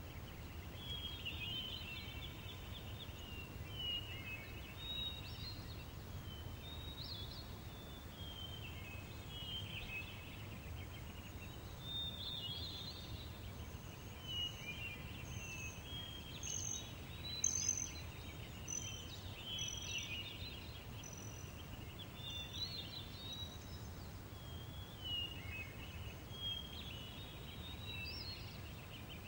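Daytime outdoor ambience: many birds chirping over a steady low breeze, with higher, quicker chirps joining in the middle stretch.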